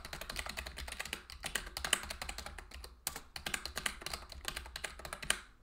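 Fast typing on a computer keyboard, a quick run of key clicks that stops just before the end.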